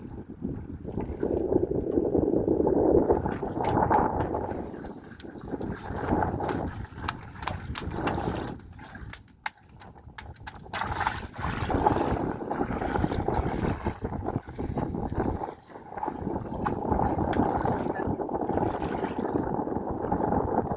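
Water sloshing and splashing with wind buffeting the microphone, rising and falling, with scattered knocks and clatters through the middle.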